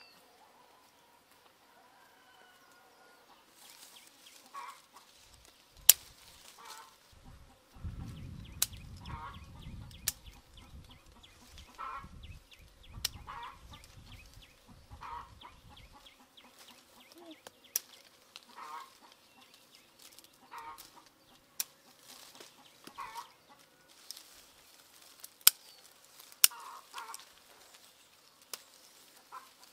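Chickens clucking, short calls every second or two, with sharp clicks of scissors snipping limes off the tree several times. A low rumble runs for several seconds partway through.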